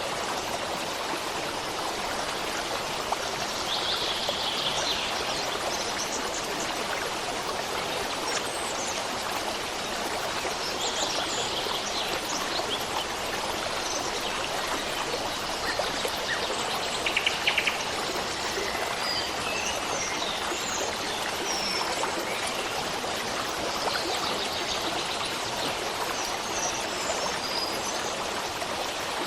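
Running stream water, a steady rushing flow, with birds chirping now and then above it, including a quick trill a little past the middle.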